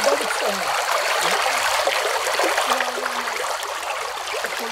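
Shallow stream running fast over pebbles and stones, a steady rushing trickle close to the microphone.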